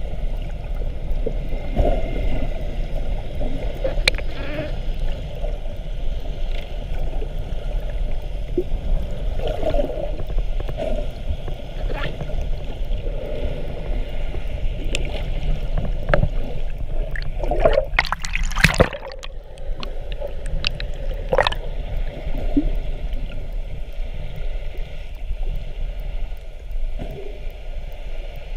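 Muffled underwater sound of sea water just below the surface, as picked up by a camera in a waterproof housing: a steady low rumble with gurgling and scattered small clicks, and a louder rush of splashing bubbles a little past the middle.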